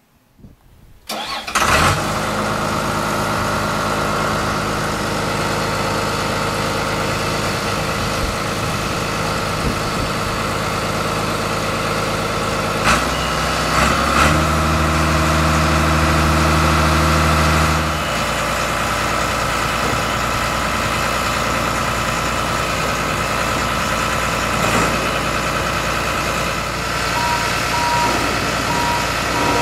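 Bulldozer diesel engine starting about a second in, then running steadily. For about five seconds past the middle it runs louder and lower before settling back.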